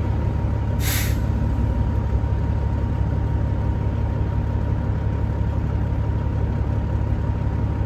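Semi-truck diesel engine idling steadily, heard from inside the cab, with a short burst of hiss about a second in.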